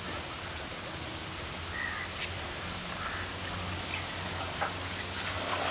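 Pool water splashing and lapping as people swim, with a low steady hum underneath.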